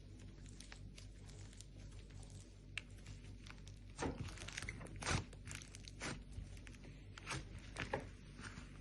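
Slime being mixed by hand: a steady run of small sticky clicks and crackles, with several louder squelchy pops from about four seconds in.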